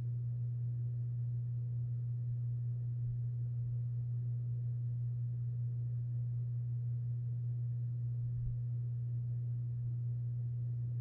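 Steady low hum of a running furnace: one unchanging low-pitched tone over a faint wash of noise.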